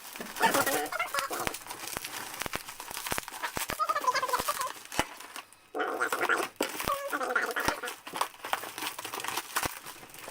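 Packaging being unwrapped: crinkling plastic and bubble wrap with scattered sharp clicks and crackles. Three short bouts of wavering squeaky sound come through it.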